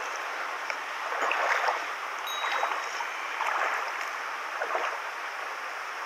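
Clear mountain stream rushing over a stony riffle. A louder swish of water comes about every second and a bit, four times, as of feet wading through the shallows.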